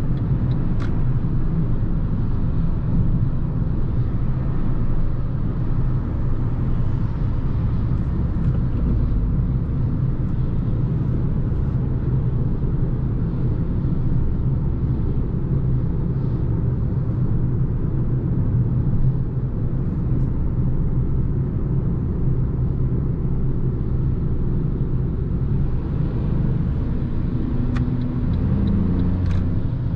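Steady low rumble of a 2022 Fiat 500 1.0 Hybrid cruising at motorway speed, heard from inside the car: engine and road noise from its 15-inch Kumho all-season tyres.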